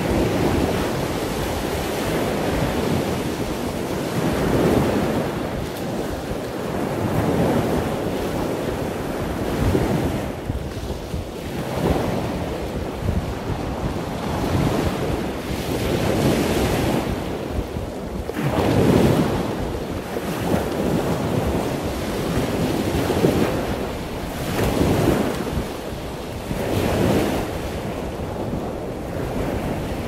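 Wind buffeting the microphone over surf washing on the shore: a continuous rushing noise that swells and eases every few seconds.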